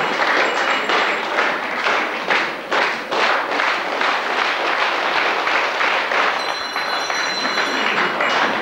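An audience clapping together in a steady rhythm, about three or four claps a second. A small handbell starts ringing about six and a half seconds in, the last bell of the school year.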